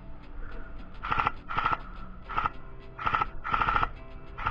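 Airsoft rifles firing short full-auto bursts, each a quick rattle lasting a fraction of a second, about five bursts, mostly in pairs about half a second apart.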